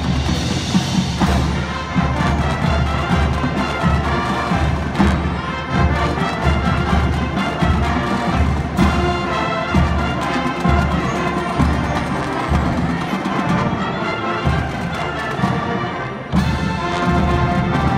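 A school marching band playing live: brass with marching drums and cymbals, the bass drums beating underneath.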